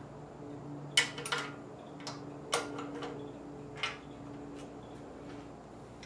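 Sharp metallic clicks and taps of a wrench and socket working the oil pan bolts on an LS engine, about five separate clicks, the loudest about a second in, over a faint steady hum.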